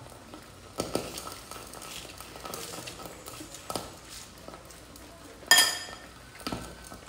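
Cutlery clicking on dishes and shells during a meal, a few light clicks and then a sharp ringing clink of metal cutlery against a dish about five and a half seconds in.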